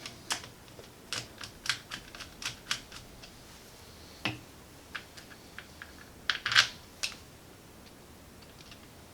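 Irregular light clicks and taps of a plastic handlebar switch housing being fitted back together on the handlebar, with a few louder knocks about four and six and a half seconds in.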